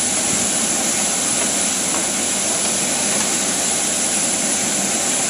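Steady jet turbine noise from a parked airliner: an even rushing hiss with a thin high-pitched whine on top, holding level without change.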